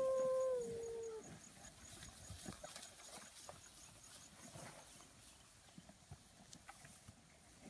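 A long, steady held call ends about a second in with a slight drop in pitch. After it come faint rustling and soft scattered hoof steps as Brangus heifers move through tall grass.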